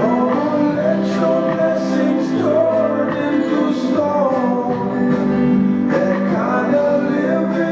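Recorded song playing: instruments with melodic lines that bend in pitch, at a steady loud level.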